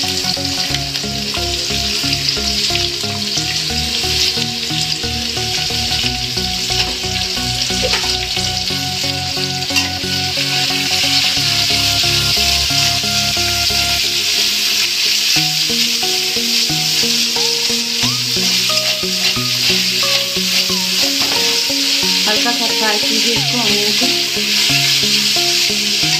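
Sliced onions sizzling in hot oil in an aluminium kadhai as they are stirred with a spatula, a steady frying hiss.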